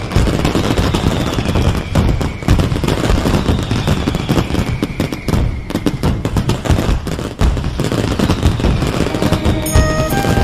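A string of firecrackers going off in rapid, continuous crackling pops. Near the end a few sustained musical notes come in.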